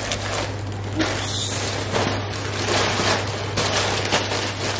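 Close rustling and knocking from handling right at the microphone, a run of irregular clicks and scrapes, over a steady low hum.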